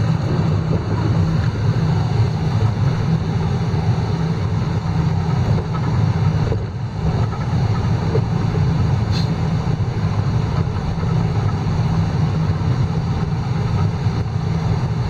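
A four-wheel-drive vehicle driving along, its engine and tyres making a steady low rumble.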